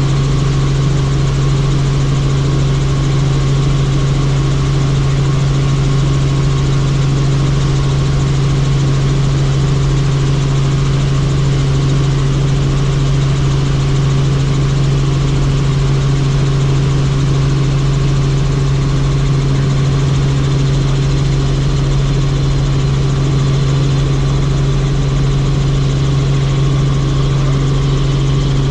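Helicopter in steady flight: a loud, constant engine-and-rotor drone with a strong low hum and fainter steady tones above it, unchanging throughout.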